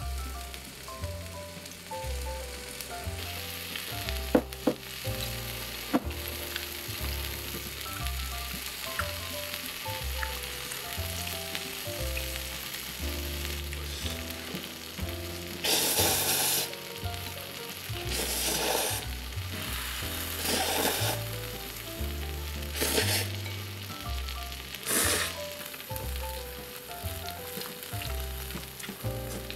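Bibim-myeon noodles slurped into the mouth in five short loud bursts about two seconds apart, with a few sharp clicks of chopsticks on a bowl earlier. Soft background music with a stepping bass line plays throughout.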